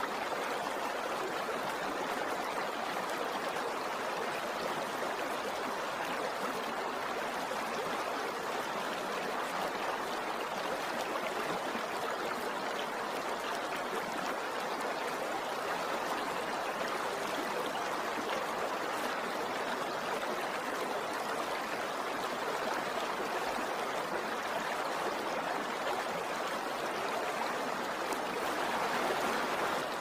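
River water rushing steadily, an even flowing noise that neither rises nor falls.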